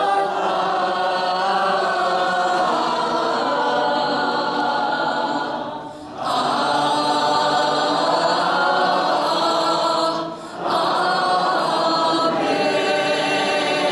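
A large group of voices singing together in long, held phrases, with two short breaks between phrases about six and ten seconds in.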